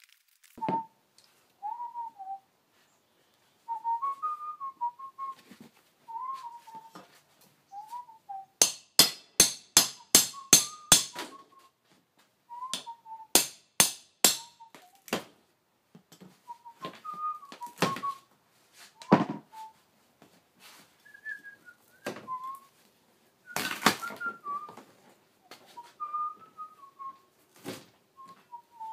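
A person whistling a slow, wandering tune while a hammer drives a pry bar under the edge of a camper's outer wall panel: a quick run of about a dozen blows about a third of the way in, another short run a few seconds later, then single knocks.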